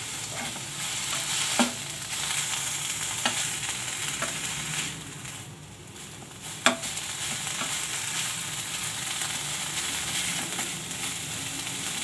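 Shredded boiled chicken gently sizzling in oil in a nonstick frying pan on a low flame while it is stirred and tossed with a spatula. There are a few short knocks of the spatula against the pan, and the sizzle drops briefly about halfway through.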